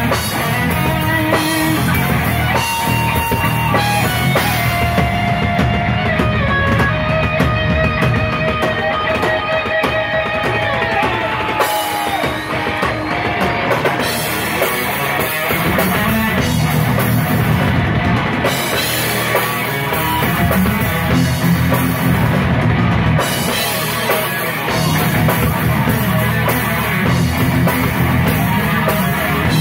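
Heavy metal band playing live with distorted electric guitars, bass guitar and drum kit, without vocals. A lead guitar line slides and bends in pitch through the first half.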